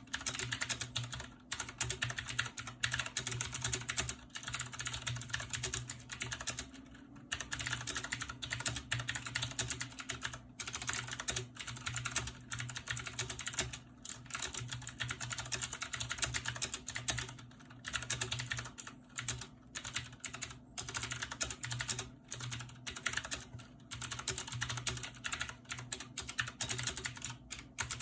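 Fast, continuous typing on a mechanical gaming keyboard with clicky switches, each keystroke a sharp click, broken by short pauses every few seconds. A faint steady low hum runs underneath.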